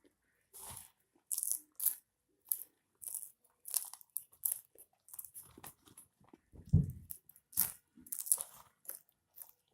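People chewing and crunching mouthfuls of popcorn, in short irregular crackly bursts. About seven seconds in there is one louder, deeper thump.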